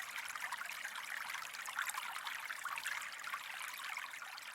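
Steady trickling water with many small crackles, the sound sitting mostly in the upper range.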